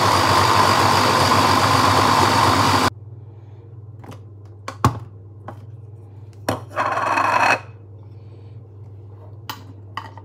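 Kenwood mini chopper's motor whirring steadily as it blends a thick sauce, then cutting off suddenly about three seconds in. After it, a few sharp clicks and knocks as the chopper is taken apart, and a short scraping noise lasting about a second.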